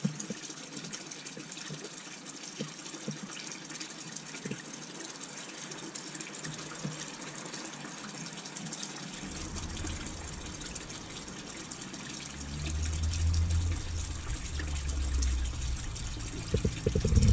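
Steady running water from hoses feeding an outdoor goldfish tank, trickling into the surface with bubbles. A low rumble comes in about halfway and grows louder in the last few seconds.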